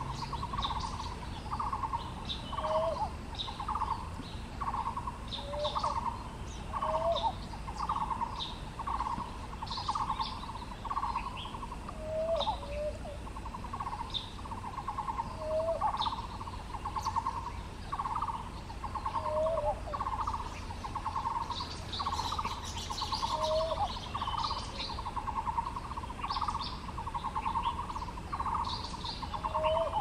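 Male maroon oriole calling: a steady run of rough, buzzy notes, a little over one a second, with a short lower note every few seconds.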